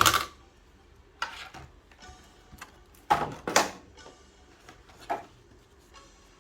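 Plastic toy pieces and packaging being taken out and handled: a string of short clacks and rustles, the loudest at the very start and a pair about three seconds in.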